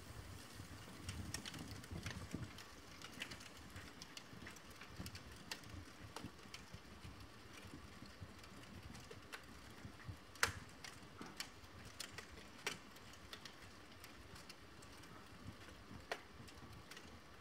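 A fire of burning paper and wood crackling faintly, with scattered sharp, irregular crackles and pops over a low hiss. Two pops stand out in the second half.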